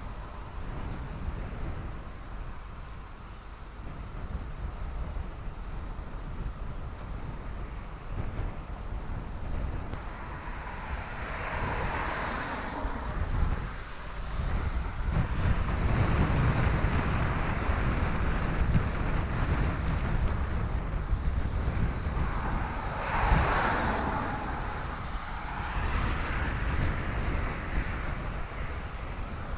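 Wind buffeting the microphone with a steady low rumble, and two vehicles passing, one about twelve seconds in and another about twenty-three seconds in, each swelling and fading.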